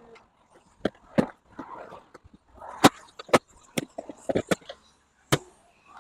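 Stihl RMA 448 VC battery lawn mower's motor hum cuts off at the very start, then about a dozen sharp, scattered knocks and clicks follow over the next few seconds.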